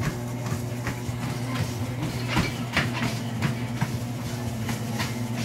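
Motorized treadmill running with a steady low hum, and a child's footfalls striking the moving belt at about three steps a second.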